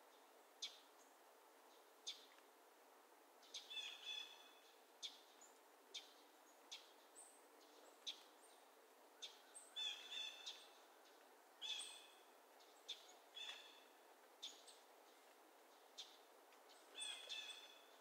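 Faint wild birds calling in an open meadow. Single sharp chip notes come about every second, and four times a harsher, buzzier call of several notes breaks in, about 4, 10, 12 and 17 seconds in, over a soft steady background hiss.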